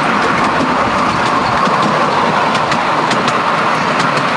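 Miniature railway carriage rolling along 7.25-inch gauge track: a steady running rumble with scattered sharp clicks of the wheels over the rails, mostly in the second half.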